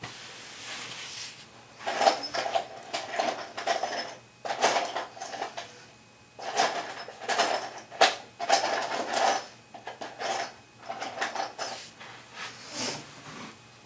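Tools and parts clattering and scraping in irregular bursts, with sharp clicks.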